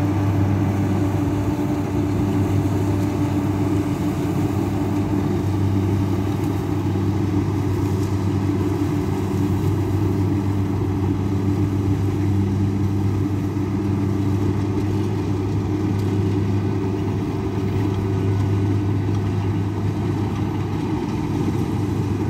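Kubota combine harvester's diesel engine running steadily while it cuts rice, a constant low hum with no change in speed.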